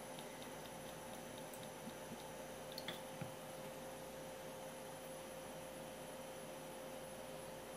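Quiet room tone with a steady electrical hum. A few faint clicks, then about three seconds in a small clatter and a soft knock as the ceramic sake flask is set down on the wooden board.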